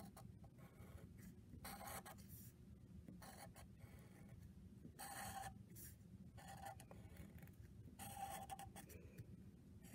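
Felt-tip marker drawing on paper: a faint series of short scratching strokes, often two close together, as a numeral is traced.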